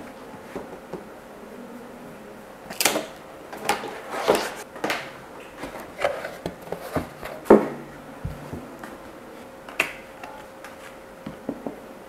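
Headphone packaging being handled and opened: irregular clicks, taps and short rustles, busiest from about three seconds in until about ten seconds in, over a faint steady hum.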